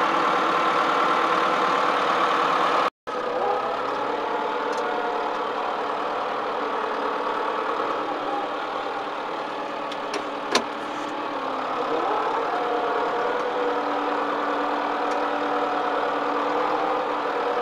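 Case 4240 tractor's diesel engine running steadily, with a brief dropout about three seconds in and a single sharp click about ten and a half seconds in.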